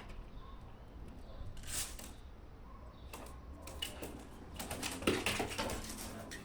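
Pet claws scrabbling and clicking, a few separate scrapes and then a quick run of them about five seconds in.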